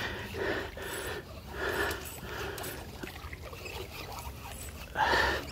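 A man breathing hard in a few separate puffs, the loudest near the end.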